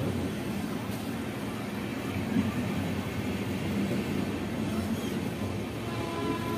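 Passenger train coaches rolling past close by on the adjacent track: a steady rumble of steel wheels on rail.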